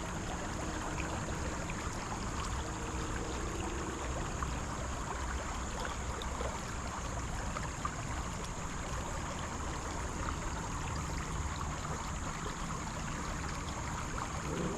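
Creek water flowing, a steady rushing noise.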